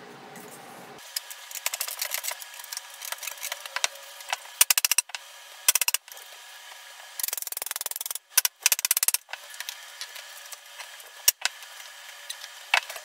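A thin metal blade scraping and clicking in the joint between pallet-wood slats, with the wooden box knocking as it is handled. It comes in rapid runs, loudest in several bursts around the middle.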